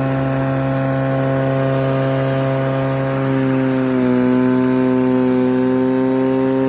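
Cordless electric lawn mower's motor and blade running at a steady speed, with a hum that dips slightly in pitch about four seconds in, as under a change in load.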